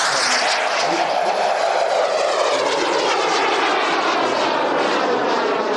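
Large RC model jet's turbine engine running in a flyby: a loud, steady rushing jet noise, with a faint high whine that falls in pitch over the first two seconds as the jet passes.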